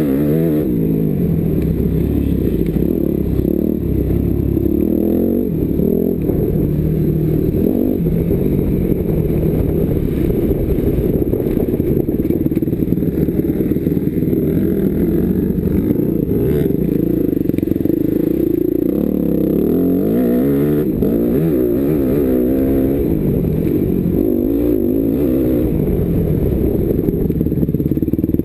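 250 cc motocross bike engine revving up and down as it is ridden around a dirt track, heard from a helmet camera with heavy wind rumble on the microphone.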